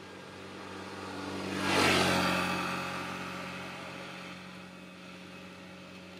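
A motor vehicle passing by. Its engine and road noise swell over the first two seconds, peak, then fade away, with the engine note dropping slightly in pitch as it goes past.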